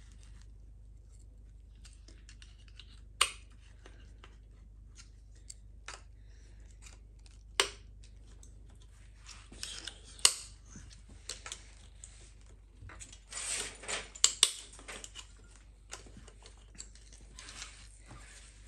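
Metal parts being handled and probed in a stripped BMW N55 engine: a few sharp metallic clicks and stretches of scraping as a tool works at a crankshaft journal where a seized big-end bearing has ground into the metal.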